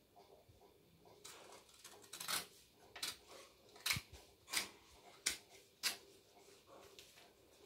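Small children's scissors cutting paper, about seven short separate snips spaced under a second apart.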